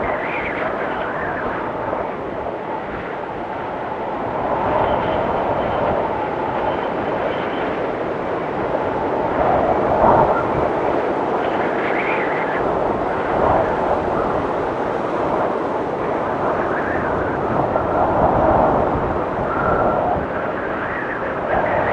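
Blizzard wind blowing in a continuous rush, with gusts swelling and easing every few seconds. Faint high whistles come and go in the wind.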